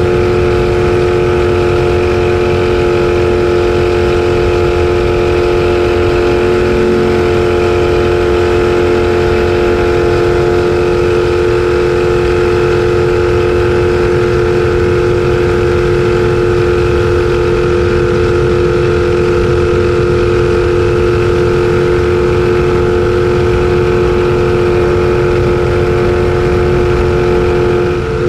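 Race jet boat's engine running under way at steady revs, heard from the cockpit, its pitch holding constant throughout.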